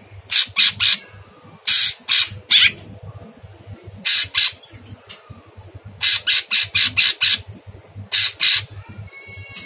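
Caged blue-winged leafbird (cucak cungkok) calling in harsh, rasping bursts of two to seven quick notes, a burst every second or two. Near the end it gives a shorter, more tuneful chirp.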